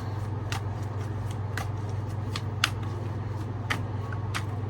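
A tarot deck being shuffled by hand, with about six sharp card snaps and taps at irregular intervals. A steady low hum runs underneath.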